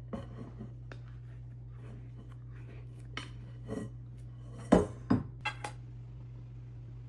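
Scattered light clinks and knocks of objects being handled, over a steady low hum. The two loudest knocks come close together a little past the middle.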